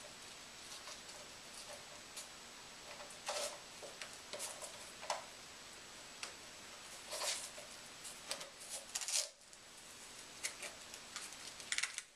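Irregular clicks, scrapes and rustles of hands fastening and adjusting the straps and hard plastic shells of KFO (knee-ankle-foot) leg braces.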